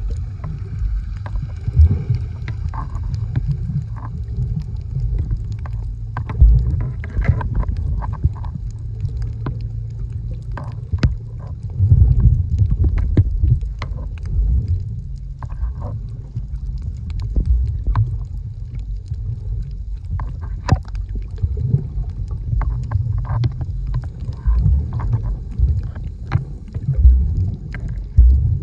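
Underwater sound picked up by a camera submerged on a coral reef: a steady, muffled low rumble of moving water with scattered sharp clicks and crackles.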